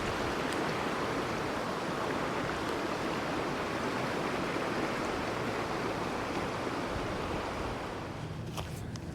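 Steady rushing noise of flowing water, easing off a little near the end, where a few light clicks begin.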